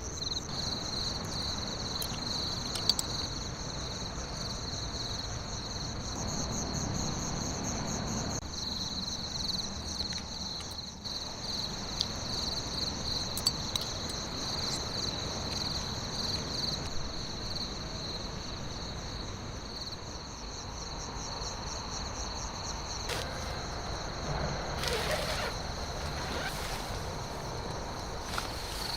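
Chorus of insects trilling steadily in two high, finely pulsing bands, over a low background rumble, with a few faint clicks.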